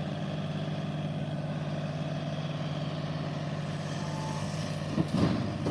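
John Deere tractor backhoe engine running at a steady speed, a constant hum, with a brief louder noise about five seconds in.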